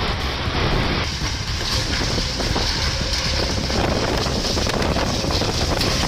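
Steady rushing noise of wind buffeting the microphone over flood footage, with no clear single event.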